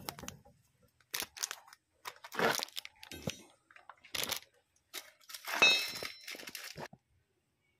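A plastic parts bag crinkling in several short bursts, with light metal clicks, and a brief metallic ring near the end as a cotter pin is fitted through the castle nut of a tractor tie-rod end.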